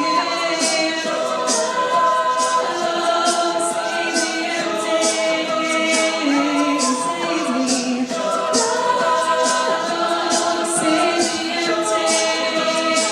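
Mixed a cappella group singing in close harmony, voices holding and changing chords, with beatboxed vocal percussion keeping a steady beat.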